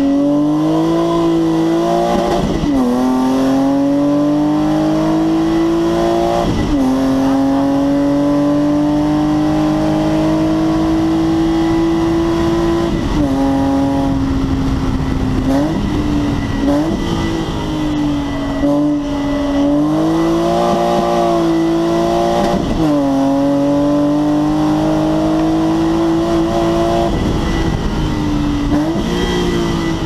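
BMW E21's swapped M50B25 2.5-litre straight-six, heard from inside the cabin, running hard on a race track. The pitch climbs slowly under load, then drops or dips sharply at gear changes about eight times.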